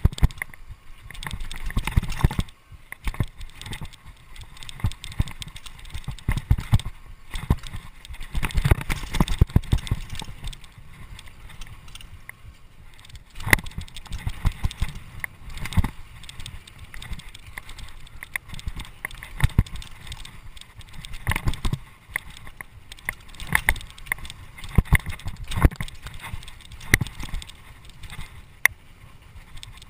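Mountain bike clattering and rattling as it rides fast over a bumpy dirt trail, with many irregular sharp knocks from the bumps and wind rumbling on the microphone.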